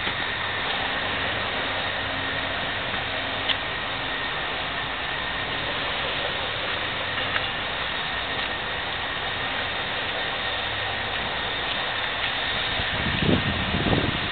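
Steady noise of city road traffic and engines, with a faint steady whine above it. A few low bumps come near the end.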